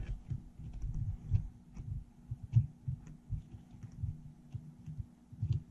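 Irregular low knocks and bumps with a few light clicks as the clamp pieces are fitted onto a watch pressure tester's lid, handled and set in place.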